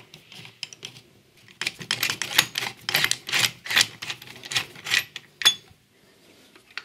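A socket tool undoing the mounting nut of a can-type filter capacitor on a steel radio chassis: a run of quick metallic clicks and scrapes, a few a second, ending about five and a half seconds in with one sharp, ringing metal clink.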